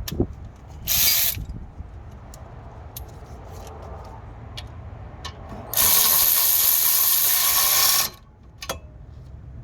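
Power ratchet running in two bursts, a short one about a second in and a longer one of about two seconds past the middle, driving in a brake caliper bolt. Small metallic clicks from tool handling come in between.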